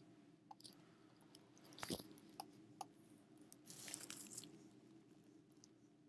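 Faint desk handling noises over a low steady hum: a few small clicks, a knock about two seconds in, and a short scuffing rustle around four seconds in, from hand work with the computer's input device.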